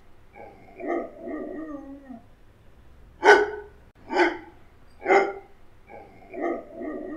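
A dog whining, then three short sharp barks about a second apart, then whining again near the end.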